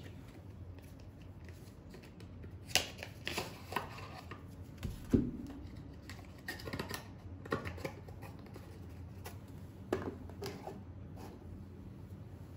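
Tarot cards handled on a table: scattered short taps and rustles of the deck, with the sharpest tap about five seconds in.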